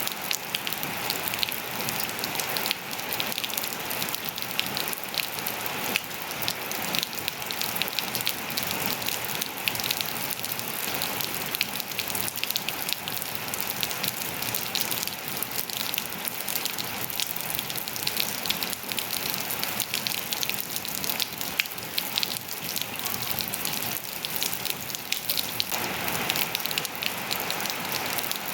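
Steady rain falling on hard surfaces and foliage, a dense patter of many individual drops.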